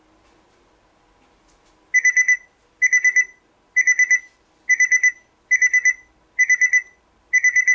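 Alarm of a G63 sound-machine alarm clock beeping: quick groups of four high beeps, repeating a little under once a second, starting about two seconds in. It rings even with the unit powered off.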